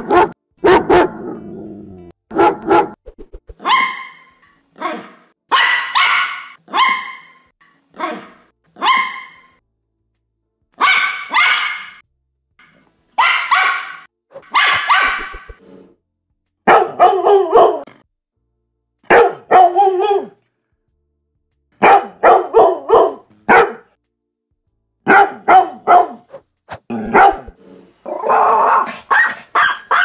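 Recorded dogs of several breeds barking in separate bouts. A German Shepherd's lower barks are heard at the start, then a Pinscher's high, sharp yapping. About halfway through a mixed-breed mutt barks, and near the end a Pomeranian (German Spitz) barks.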